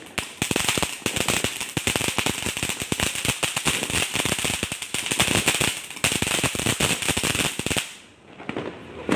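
Ground fountain firework spraying sparks with dense, rapid crackling and popping, which dies away about eight seconds in as the fountain burns out.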